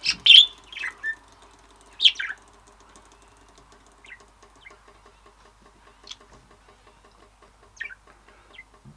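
Pet bird chirping in its cage: two loud, short, high chirps in the first two seconds, then fainter chirps every second or so.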